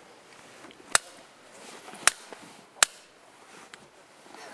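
Three sharp knocks, about a second apart, as a plastic inertia bullet puller is struck down against a log to free the bullet from a heavily crimped pistol cartridge, which takes repeated blows.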